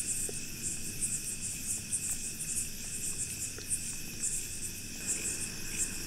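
Crickets chirping in short high pulses about twice a second, over a steady high insect trill.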